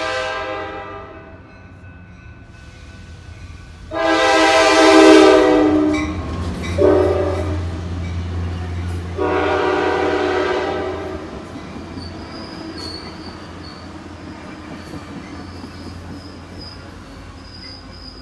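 A Coaster commuter train's locomotive horn sounding the grade-crossing signal: the end of one long blast, then a long blast, a short one and a final long blast. Under the last blasts is the low drone and rumble of the double-deck train running past.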